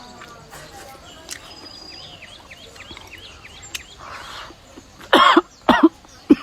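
A person coughs hard three times in quick succession near the end. A small bird chirps in a quick run of short calls about two seconds in.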